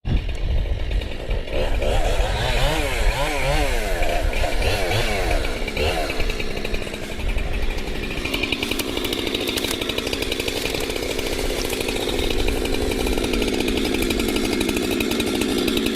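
Chainsaw engine revved up and down several times in quick succession, then running at a steadier pitch from about seven seconds in as it cuts into the tree trunk.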